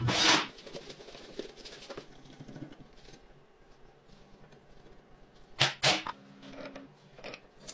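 Small metal parts clicking and tapping as a brake disc and caliper are bolted onto a mini dirt bike wheel with a hex driver. There is a loud noisy burst right at the start and two sharp clacks about five and a half seconds in.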